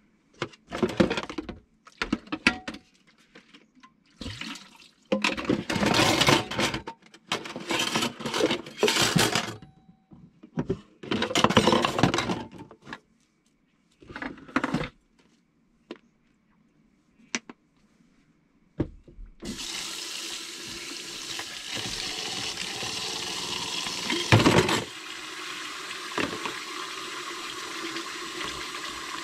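Kitchen sink tap running in short bursts of splashing water during the first half. From about two-thirds of the way in, water runs steadily from the faucet-mounted filter into the sink, with one brief louder splash before it settles a little quieter.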